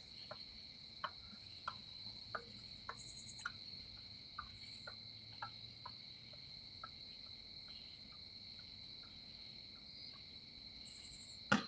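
Night chorus of crickets: a steady, faint, high trill that carries on throughout. Faint regular ticks come about every two-thirds of a second through the first half or so.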